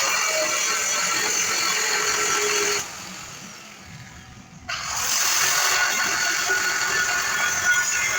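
Electric angle grinder working on steel frame iron, in two runs. The first run winds down about three seconds in, and the grinder starts up again about two seconds later.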